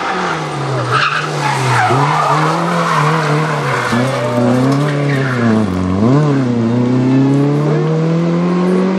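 Peugeot 205 rally car's engine revving hard through a tight corner, the revs falling and rising several times as it brakes and slides, with tyres skidding on the gravel-strewn road. Near the end the revs climb steadily as it accelerates away.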